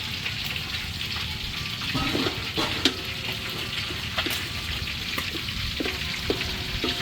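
Fish and ginger sizzling steadily in hot oil in a pan, with a metal utensil knocking and clinking against the pan several times as the food is stirred.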